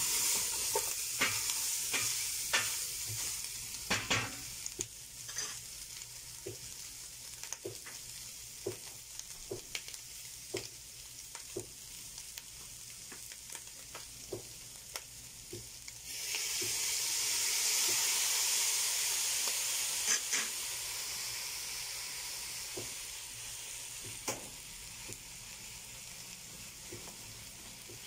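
Pork pieces with ginger and onion sizzling in a stainless steel pot while a wooden spoon stirs them, with scattered clicks of the spoon against the pot. The sizzle grows suddenly louder about sixteen seconds in, then slowly fades.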